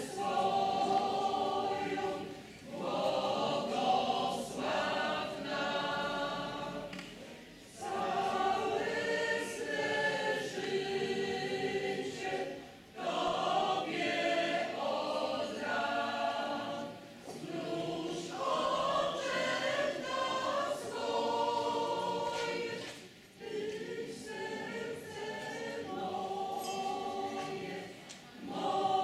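Mixed choir of men and women singing a Christmas carol, in phrases of a few seconds with short breaks for breath between them.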